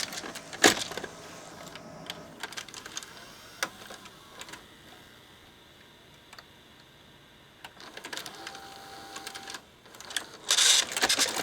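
Mitsubishi VCR's tape transport mechanism clicking and whirring as a cassette is run through loading and eject, with a louder clatter near the end. The transport is working again after its pinch roller was replaced and realigned, and eject no longer eats the tape.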